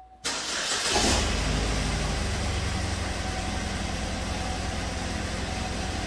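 2012 Chevrolet Equinox's 2.4 L Ecotec four-cylinder engine cranking briefly and catching about a second in, then idling at about 1,300 rpm with a steady misfire on cylinder number 2, traced to a failed number 2 ignition coil.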